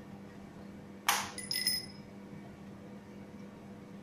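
A sharp metallic clink about a second in, ringing briefly, as steel parts of a Cummins diesel fuel injector are handled during assembly, over a steady low hum.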